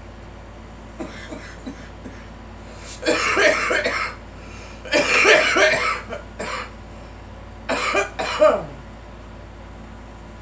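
A girl coughing in several fits: a few small coughs about a second in, two longer, loud coughing bouts around three and five seconds in, and a quick double cough near eight seconds. A steady air-conditioner hum runs underneath.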